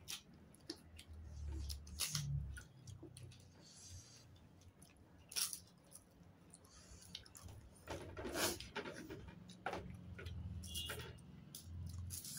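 People eating with their hands: chewing, with light clatter and scattered sharp clicks of fingers, food and cutlery against plates and dishes.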